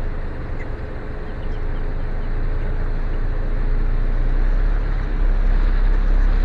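A car's engine and road noise heard from inside the cabin: a steady low rumble with a faint steady hum. It grows a little louder about five seconds in.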